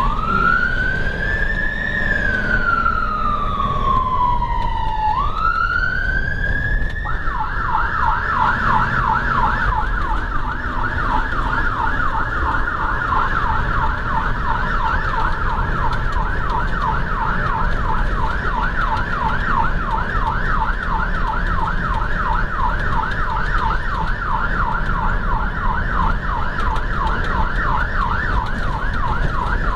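Electronic siren of a civil-protection emergency vehicle, heard from inside the vehicle over engine and road rumble. It sounds a slow wail rising and falling for about the first seven seconds, then switches to a fast yelp of quick rising sweeps, several a second, which keeps going.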